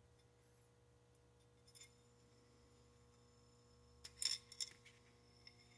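Sharp metallic clinks of a steel cleaning rod and chamber gauge, typical of a stuck gauge being tapped out of a rifle chamber: a faint tap about two seconds in, then a quick cluster of bright, ringing clinks about four seconds in.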